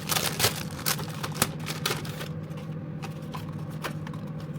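Packaging being handled: a quick run of light clicks and rustles, thinning out after about two seconds, over a steady low hum.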